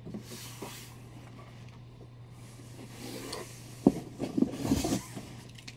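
Comic books being handled and shuffled: soft paper rustling, a light knock about four seconds in and more handling just after, over a low steady hum.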